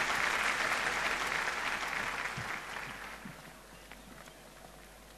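Audience applauding, the clapping dying away about three seconds in and leaving a few stray claps.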